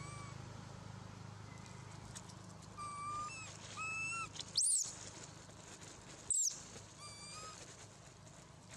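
Long-tailed macaques calling: a few short, high, whistle-like calls, with two level calls about three seconds in and sharp rising-and-falling squeals near four and a half and six and a half seconds in.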